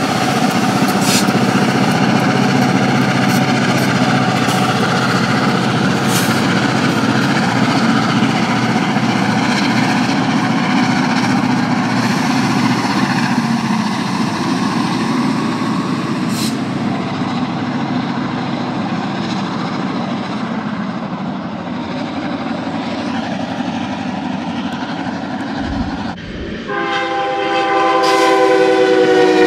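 Freight train with diesel locomotives and autorack cars rolling past: a steady rumble of engines and wheels on rail, with a few sharp clicks. About 26 seconds in, an Amtrak diesel locomotive sounds its multi-note air horn, loud, the chord dropping slightly in pitch as it passes.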